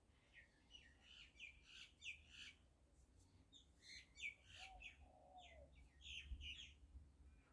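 Faint bird chirping: two runs of quick, high chirps, with a lower, curving call about halfway through.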